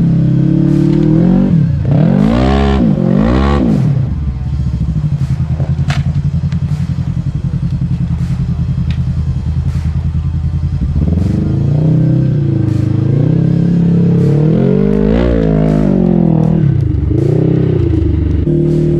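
Polaris RZR side-by-side's engine revving up and down while driving off-road. It runs steadier for several seconds in the middle, then revs up and down again. Scattered knocks and rattles sound over the engine.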